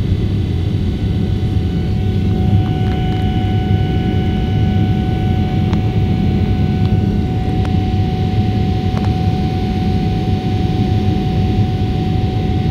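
Boeing 777 cabin noise heard from a window seat beside the wing: the GE90 turbofans and the airflow make a steady low rush during the climb after takeoff. A steady whine joins about two seconds in.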